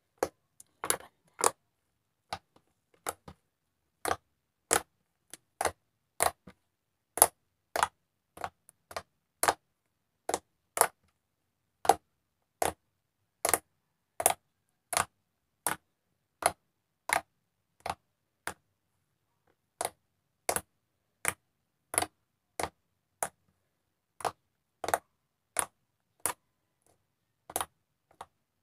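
Slime being poked and pressed with the fingers, giving sharp pops and clicks about one or two a second, with silence between them.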